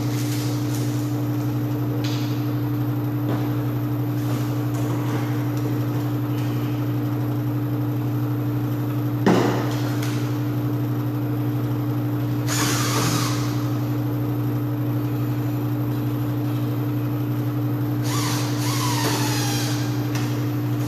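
A steady, loud machine hum throughout, with lock hardware being handled over it: a sharp knock about nine seconds in, a brief scraping hiss a few seconds later, and light metallic clinking near the end.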